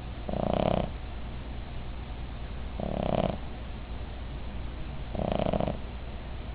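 Cavalier King Charles Spaniel snoring: three loud snores, each about half a second long and about two and a half seconds apart.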